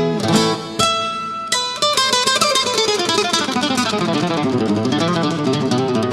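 Flamenco guitar music: a few strummed chords and a held chord in the first second or so, then fast runs of picked single notes.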